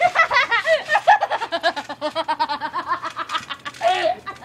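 A girl laughing hard in a long run of quick, high-pitched bursts that trails off near the end.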